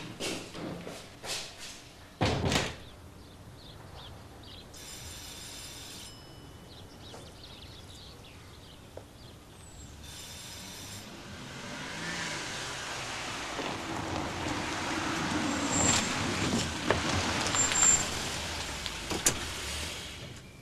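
A wooden door thuds shut about two seconds in. In the second half a car drives up and stops, its engine and tyre noise growing louder, with a brief high squeak and a few ticks as it comes to a halt.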